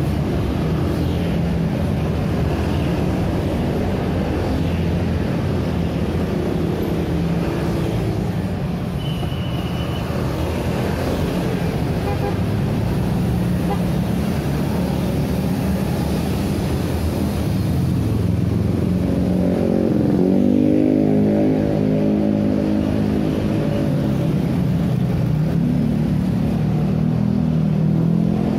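Busy road traffic of small motorcycles, scooters and cars passing close by, engines running in a steady stream. About twenty seconds in, one vehicle passes loudest, its engine pitch dipping and then rising as it speeds up.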